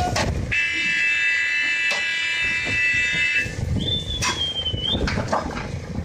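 A machine horn sounds a steady buzzing tone for about three seconds, followed about four seconds in by a shorter single high tone that dips and then rises. Under both runs the low rumble of the excavator's diesel engine.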